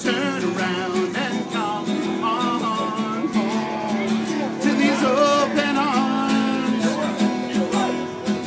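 Acoustic guitar strummed in a steady rhythm, with a singer's voice carrying a melody over it.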